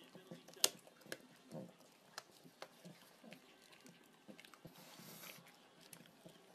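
A pug making faint close-up mouth and nose noises: scattered smacking, chewing-like clicks and snuffling breaths, with a short breathy hiss about five seconds in.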